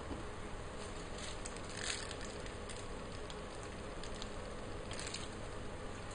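Steady background hum and hiss, with a few brief, faint rustles about two seconds in and again about five seconds in, from a piping bag being handled and squeezed as filling is piped into a tartlet shell.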